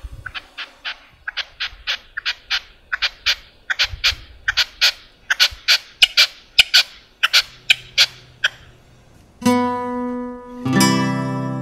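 Red-legged partridge calling: a long run of short harsh chuck notes, about four a second in small groups. Near the end the calls stop and an acoustic guitar strums two chords.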